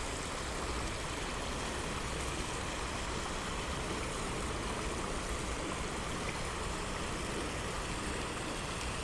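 Steady rush of river water running over a small riffle.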